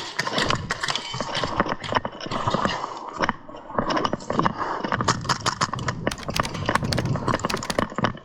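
Dense, irregular clattering and clicking from an airsoft player's movement and gear, growing faster and sharper in the second half.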